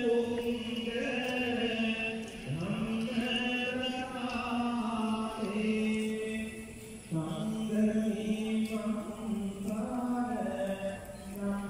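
Buddhist chanting by a voice in long, held notes, pausing briefly about two and a half and seven seconds in before each new phrase.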